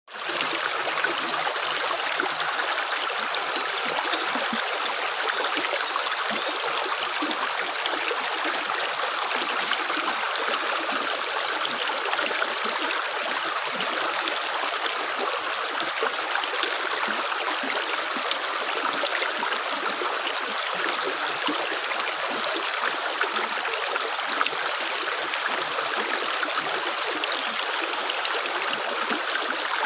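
Continuous rushing of flowing water, like a stream, even and unbroken throughout.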